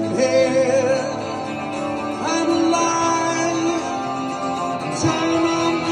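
Live two-guitar rock music: an acoustic guitar strummed under an electric guitar playing long held, bending notes, in an instrumental stretch between sung lines.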